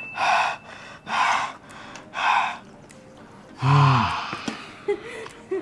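A man breathing hard after speed-eating: three loud, rushing breaths about a second apart, then a long falling "aah" with his mouth wide open about three and a half seconds in.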